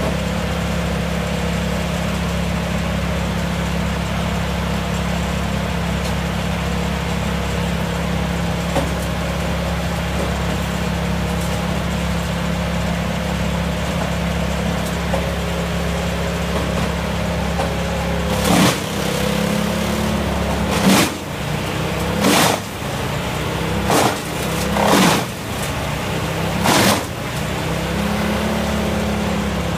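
Vermeer BC1500 brush chipper's engine running steadily at full throttle; from about two-thirds in, a log fed into it is chewed up in about six loud bursts of chipping, and the engine drops in pitch under the load, then recovers near the end.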